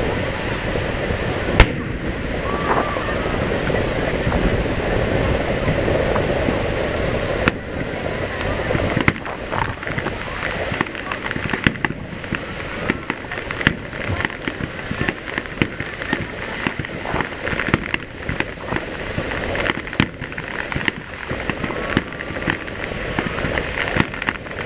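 Fireworks: a single sharp boom from an aerial shell burst about one and a half seconds in, over a murmur of crowd voices. From about seven seconds on comes a rapid, uneven run of bangs and crackling pops from a barrage of low shells bursting just above the sea surface.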